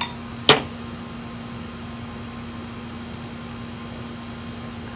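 Two wine glasses clink once in a toast, then a steady high-pitched chirring of crickets over a low steady hum.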